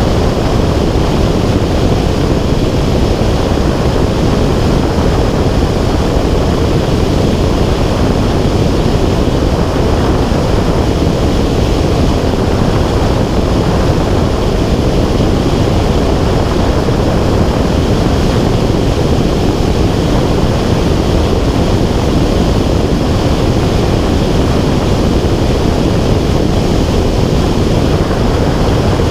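Loud, steady wind rush buffeting an action camera's microphone in flight, a deep even roar that does not change.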